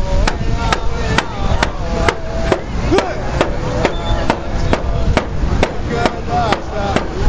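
Hand-held frame drum struck with a beater in a steady beat, a little over two strokes a second, with a voice singing along in long wavering notes.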